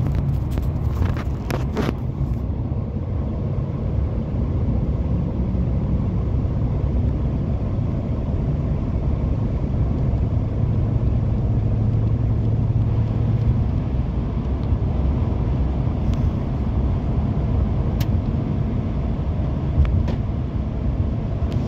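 Steady low drone of a pickup truck's engine and road noise heard inside the cab while cruising at about 60 mph, the engine turning near 2,000 rpm. A few faint clicks come about a second in and again near the end.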